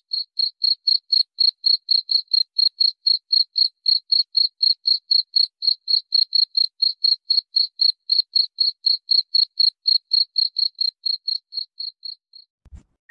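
Insect chirping in an even rhythm of about four high chirps a second, with nothing else heard between the chirps. It stops shortly before the end.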